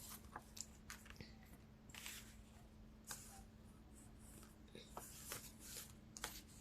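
Near silence: faint scattered clicks and soft rustles over a low steady hum.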